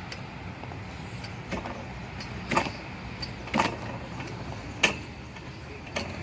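Playground seesaw rocking up and down, with a short sharp mechanical sound about once a second, five in all, over a steady low background rumble.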